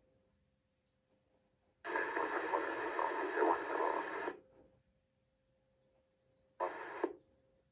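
Uniden Bearcat UBC9000XLT scanner on the aircraft band, its squelch opening on a burst of radio hiss and static for about two and a half seconds, then again briefly near the end, each cutting off abruptly. A faint steady tone hums in the gaps.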